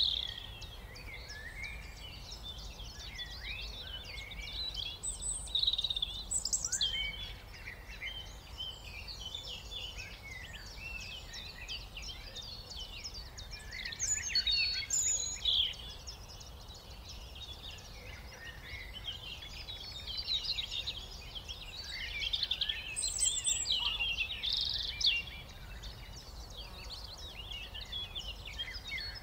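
A chorus of many small songbirds chirping and twittering, with short calls overlapping one another and growing louder in a few brief clusters.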